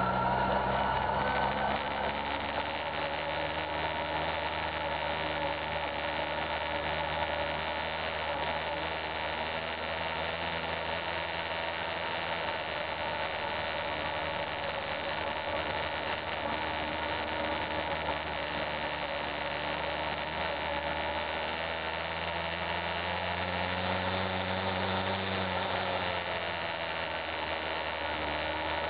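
Honda CBF600 motorcycle's inline-four engine running steadily at low speed.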